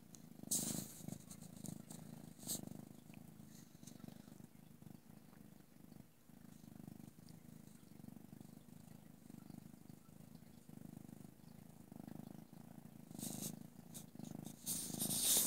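Grey tabby cat purring steadily at close range. Brief scratchy rustles of fur and hand against the microphone come about half a second in, again around two and a half seconds, and several times near the end.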